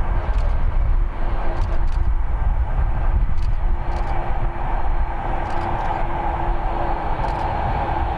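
Jet engine noise from the Airbus A350-900's Rolls-Royce Trent XWB turbofans: a steady roar over a deep rumble, with a held tone, growing a little stronger in the second half.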